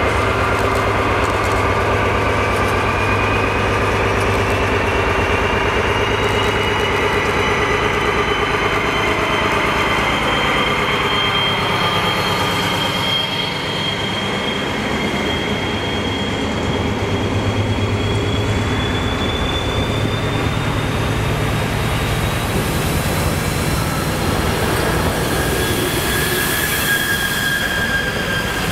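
DB Class 218 diesel-hydraulic locomotive and its yellow measuring-train coaches passing close by: a loud, steady low diesel drone and rail noise, with a thin high whine over it that slowly rises in pitch.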